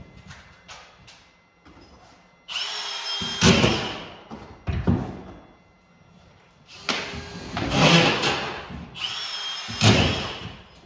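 Cordless drill driving screws into sheetrock in three short runs, each spinning up with a rising whine, about two and a half, seven and nine seconds in. There are light knocks between the runs, and the sound echoes in the bare drywalled room.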